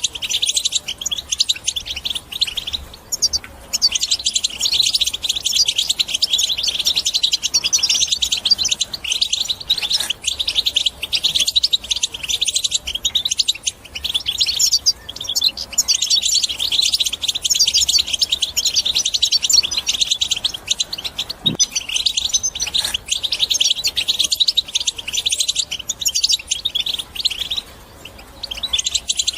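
European goldfinch singing a fast, continuous twittering song of rapid high notes, with short pauses about three seconds in and near the end.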